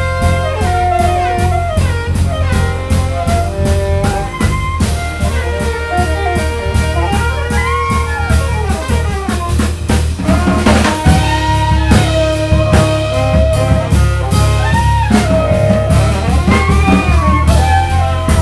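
Live jazz quintet playing: a saxophone plays a winding melodic line over piano, bass and a drum kit keeping steady time on the cymbals.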